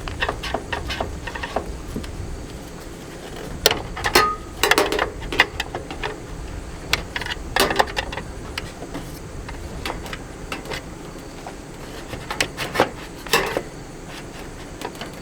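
Irregular clicks, taps and metallic knocks of hands and tools working on an RV furnace's sheet-metal case and wiring, with a few louder clanks in clusters.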